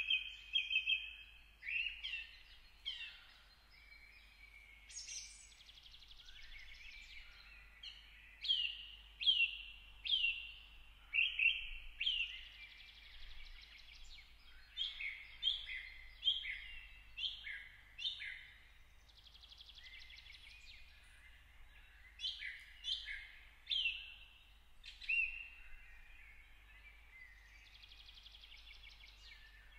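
Songbirds singing and chirping: a continuous series of short, clear whistled notes, many sliding down in pitch, with brief gaps between phrases.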